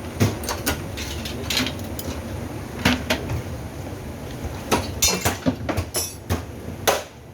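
Irregular knocks and clatter of hard parts being handled and dropped, as when a top-load washing machine is taken apart for its materials.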